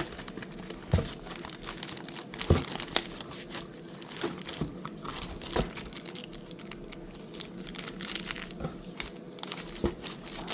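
Plastic wrapping crinkling and crackling as it is handled, with irregular clicks and a few louder knocks.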